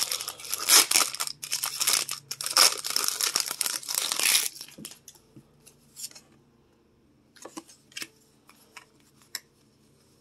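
A foil Pokémon TCG booster pack being torn open and crinkled for about four and a half seconds. After that come a few faint clicks and taps as the trading cards are pulled out and fanned.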